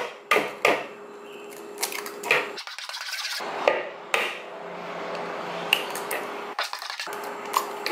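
An egg being cracked over a plastic mixing bowl of cake batter: several sharp taps and clicks of eggshell and a metal spoon against the bowl. The egg drops into the batter about six seconds in.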